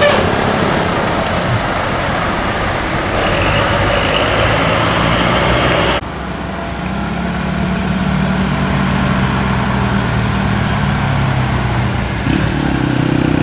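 Diesel tour buses passing on the road: engine running under wide tyre and road noise. About six seconds in, the sound cuts off suddenly and gives way to a steadier low engine drone.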